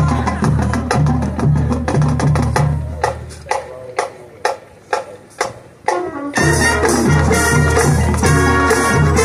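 High school marching band playing. The low pulse and band thin out about three seconds in, leaving a few sharp, separate percussion hits, then the full band comes back in loudly a little past six seconds.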